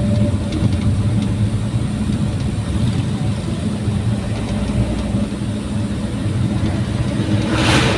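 Daihatsu Gran Max pickup engine running steadily through its modified exhaust, a continuous low drone with no change in pitch. A brief rush of noise is heard near the end.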